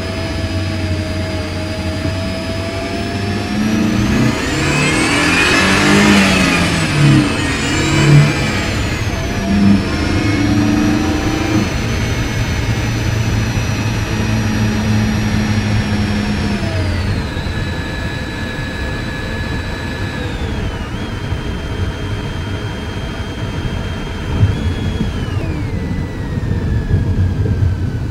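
Mercedes M271 supercharged four-cylinder engine, heard from the engine bay, accelerating hard with a high whine that climbs with the revs and peaks about six seconds in. It then settles into steady running, its pitch dropping in steps several times as the six-speed manual is shifted or the throttle eased.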